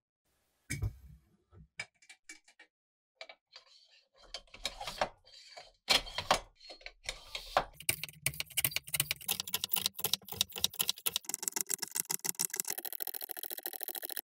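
1960s hand bicycle pump being worked by its T-handle to inflate a balloon on its hose: a few scattered clicks of handling at first, then a dense run of rapid ticks and rubbing from the pump strokes that thickens into a steady hiss of air near the end.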